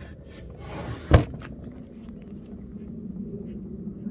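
Handling noise on a bare chipboard speaker cabinet, with one loud knock about a second in. A steady low hum continues behind it.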